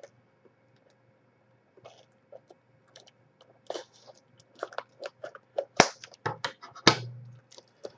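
A trading card box being handled and opened by hand: an irregular run of crinkles, taps and clicks of cardboard and plastic wrap, with two sharper knocks near the end.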